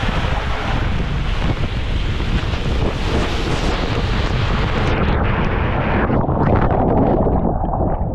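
Rushing water and air on a camera microphone riding feet-first down an enclosed tube water slide, loud and steady. About five seconds in the sound turns muffled and dull as the camera meets the water at the bottom of the slide.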